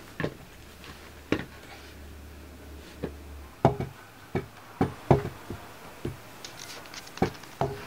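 A wooden stool knocking on the floor as a person climbs onto it: about a dozen sharp, irregular knocks, coming faster in the second half.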